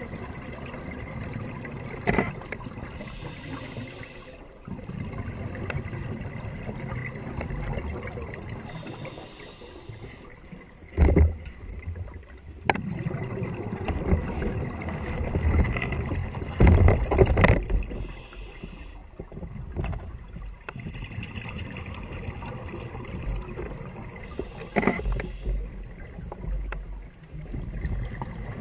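Underwater sound of a scuba diver breathing through the regulator: a hiss and bubbling exhalations come back every five or six seconds over a low, steady gurgle. A few loud knocks come around the middle.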